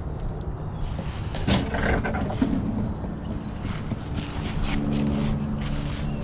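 Low, uneven wind noise on the microphone, with a few light handling clicks. About four and a half seconds in, a steady low engine hum comes up and grows toward the end.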